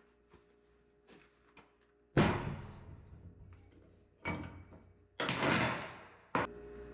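Loud metallic clanks and a rattling scrape from a 12-bolt Chevy rear axle and its parts being handled under a lifted car: one hard clank about two seconds in, another near four seconds, a longer scraping rattle, then a sharp click.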